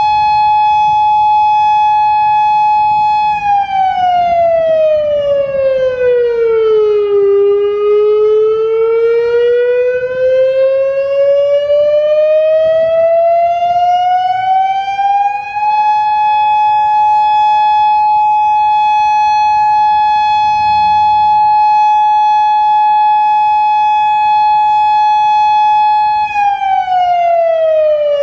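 Federal Signal Modulator 6048 electronic outdoor warning siren sounding a slow wailing signal. A steady tone with many overtones holds for a few seconds, glides down about an octave over some four seconds, climbs slowly back up, holds for about ten seconds, then starts to fall again near the end.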